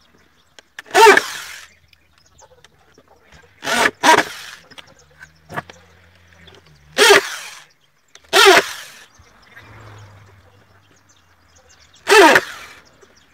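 Corded electric drill run in about six short bursts of half a second each, its motor spinning up and winding down as it bores into the wooden chair frame.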